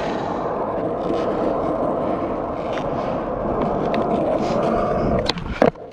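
Skateboard wheels rolling across a hard tennis-court surface, a steady rolling rumble, then two sharp knocks near the end.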